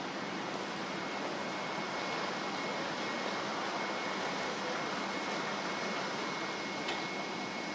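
Steady running noise of a DB Class 425 electric multiple unit standing at the platform, with a thin, steady high whine over it. A faint click comes near the end.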